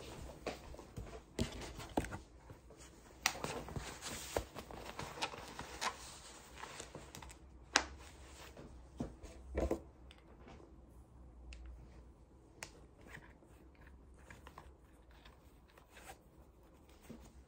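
Rustling cloth and canvas with scattered soft clicks and knocks as a laptop is packed into a canvas sleeve and a mouse into a small cotton drawstring pouch. The handling is busiest in the first half and quieter in the second.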